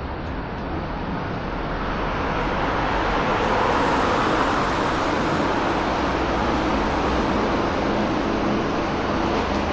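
Steady road traffic noise on a busy city street, growing louder over the first few seconds and then holding level.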